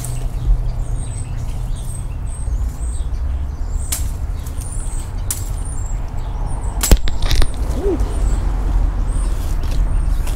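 Outdoor ambience: a steady low rumble on the microphone, scattered sharp clicks and knocks (one loud one about seven seconds in), and many short, high-pitched bird chirps.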